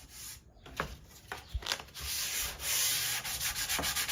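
Sandpaper rubbed by hand over a ceiling fan blade to smooth its rough, sandpaper-like surface. A few light scrapes come first. About two seconds in, a steady rasp starts and settles into quick, even back-and-forth strokes.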